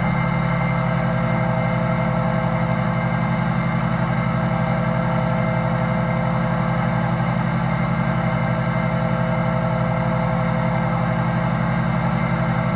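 Vintage Delta shaper running with its dust extraction on: a steady motor hum, spinning free with no wood being cut.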